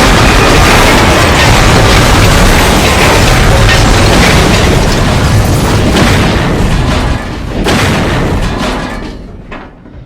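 Steam-locomotive crash sound effect: a long, very loud rumbling crash of booming impacts and grinding wreckage. It eases off about seven seconds in, crashes again briefly, then dies away and cuts off suddenly at the end.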